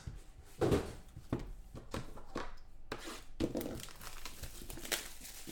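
Hands handling and opening a cardboard trading-card box: scattered rustles, scrapes and light taps of packaging.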